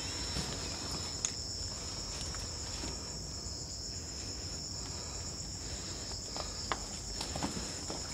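Night insect chorus: a steady, high-pitched trilling in two close pitches that never lets up. A few faint sharp clicks stand out over it, the clearest about one second and about seven seconds in.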